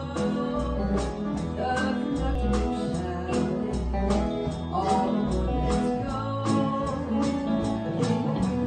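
Live country gospel band: singing over an electric guitar and a bass guitar, with a steady beat of about two strikes a second.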